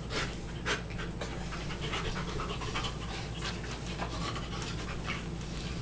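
Large shaggy dog panting, a string of quick, irregular breaths.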